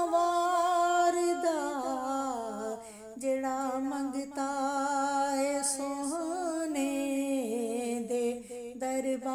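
A woman's solo voice singing a Punjabi naat unaccompanied, drawing out long held notes that bend slowly in pitch, with a brief breath about three seconds in.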